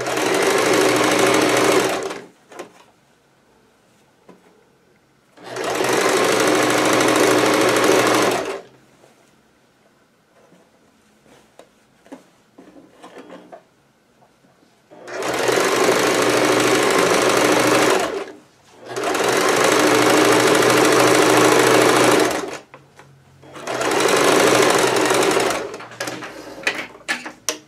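Household electric sewing machine stitching a trouser inseam in five separate runs of a few seconds each, stopping and starting as the fabric is guided. Small clicks and rustles of the fabric being handled fill the pauses.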